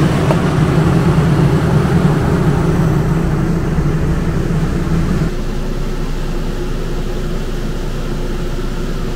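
One Dometic rooftop RV air conditioner running, heard through its ceiling duct vent as a steady hum with a rush of air. The low hum drops in level a little over five seconds in, and a quieter steady hum goes on.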